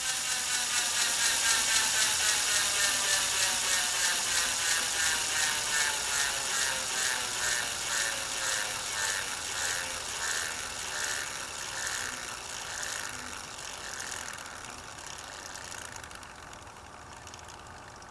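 Antique Allis-Chalmers 10 hp three-phase electric motor coasting down after power is cut. Its whine falls in pitch, and a rhythmic pulsing slows as the rotor loses speed. The sound fades steadily toward the end.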